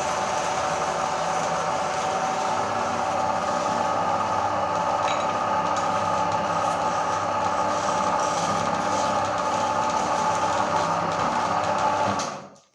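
Electric meat grinder motor running steadily as it grinds cookies, then switched off near the end, the sound cutting off quickly.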